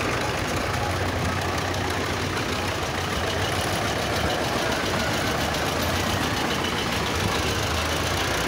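Diesel tractor engines running steadily as a line of tractors drives past one after another.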